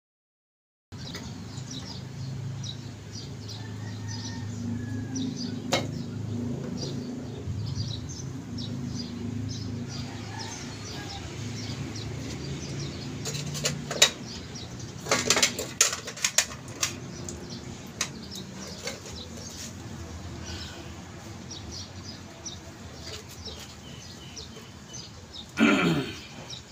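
Small birds chirping over and over, with occasional sharp metallic clinks as steering box parts and tools are handled, a quick cluster of them about halfway through. A low hum runs under the first half, and a short louder sound comes near the end.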